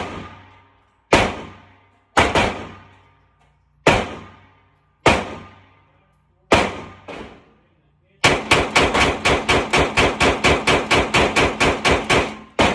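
Gunshots from a firearm on a shooting range: six single shots about a second or more apart, each ringing off. After about eight seconds comes a rapid string of roughly two dozen shots at about five a second.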